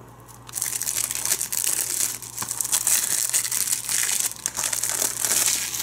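Clear plastic shrink wrap being torn open and peeled off a Blu-ray case: dense, continuous crinkling and crackling that starts about half a second in.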